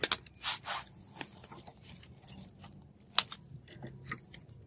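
Sharp metallic clicks and short scrapes of pliers gripping a leaf-spring steel knife blank and snapping off the small cut tabs in its notches. There are several clicks in the first second, and the loudest single click comes about three seconds in.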